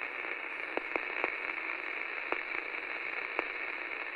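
Television static: a steady, thin hiss with a few sharp crackles through it.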